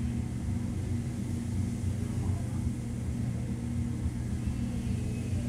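Steady low hum of machinery, even and unchanging, with a constant low drone.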